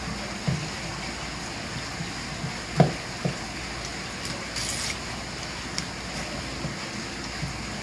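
Knife work on a wooden cutting board: a few soft knocks and taps, the loudest about three seconds in, over a steady rush of running water.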